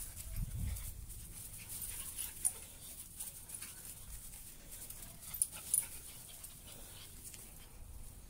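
Shih Tzu puppies panting as they play on grass, with a few short sharp sounds, the clearest about two and a half seconds in and two close together just past the middle.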